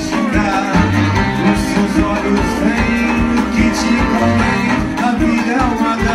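Live rock band playing a steady groove: electric guitars, drums and saxophones together.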